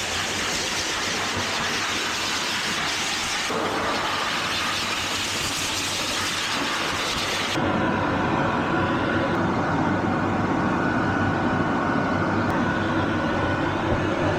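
A high-velocity pet dryer blasting air at a steady rush, drying a dog's coat. The sound changes suddenly twice, turning duller and lower about seven and a half seconds in.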